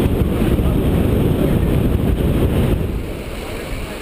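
Wind buffeting the microphone on a sailing yacht: a loud, steady rumble that eases a little near the end.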